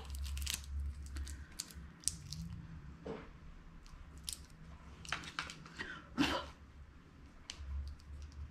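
Faint scattered clicks and rustles of eyeliner pencils being handled and uncapped, the loudest about six seconds in, over a low steady hum.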